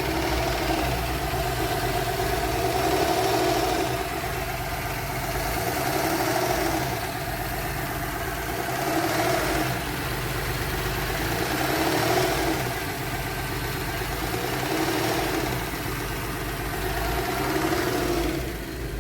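Porsche Cayenne VR6 engine idling unevenly, its speed rising and falling back about every three seconds, with vibration: an unstable, hunting idle. The mechanic traces it to a failed PCV valve built into the cylinder-head cover, with lean-at-idle fault codes stored.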